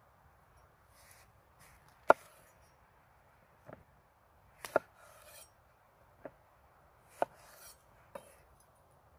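A kitchen knife chopping food on a wooden cutting board: about seven sharp, irregular chops, the loudest about two seconds in, with brief scraping sounds between them.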